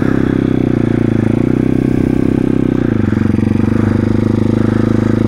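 YCF 150 SM pitbike's air-cooled single-cylinder engine running steadily at low revs in first gear while the clutch is slipped. The engine note shifts slightly about three seconds in.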